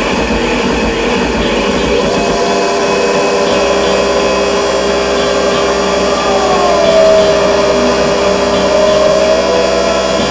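Dense, loud wall of improvised noise from distorted electric guitars and turntables, with droning held tones under it and a pitch that slides down about six seconds in.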